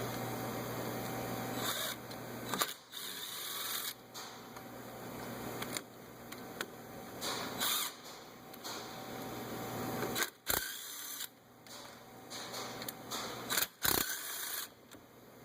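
A 3/8-inch ratchet clicking in uneven runs as the hub assembly's mounting bolts are backed out, with a few sharp knocks in between.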